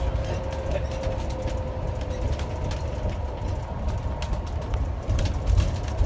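Cabin of a 2018 Blue Bird electric school bus on the move: a steady low road rumble with a faint steady whine, and frequent light rattles and clicks from the bus body. The rumble grows louder near the end.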